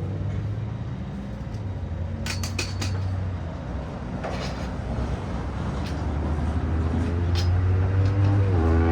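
Metal tools clinking and clicking a few times, a quick cluster of clinks about two seconds in, over a steady low hum. A droning tone rises near the end.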